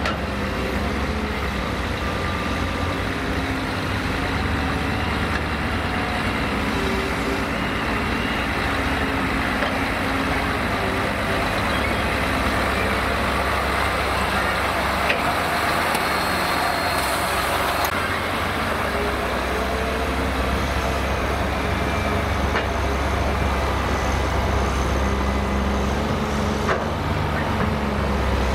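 Mercedes-Benz Actros four-axle tipper truck's diesel engine running as the truck drives up, passes and pulls away, with a steady low engine hum.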